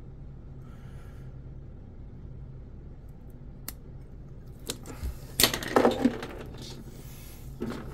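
Clicks and clatter of small hard objects being handled: one sharp click about halfway through, then a short burst of knocks and rattles a second or so later, over a steady low hum.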